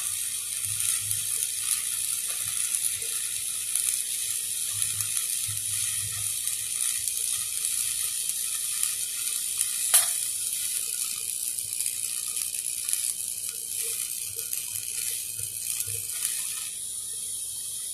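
Stick (shielded metal arc) welding on a steel pipe: the electrode's arc crackling steadily, with one sharp pop about ten seconds in. The arc stops shortly before the end.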